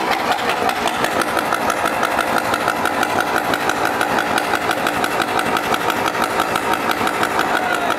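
Motorcycle engine idling steadily, a fast even pulsing.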